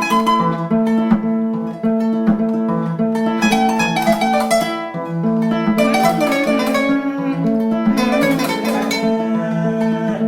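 Music played on a plucked string instrument: a flowing run of picked notes over a repeating lower line.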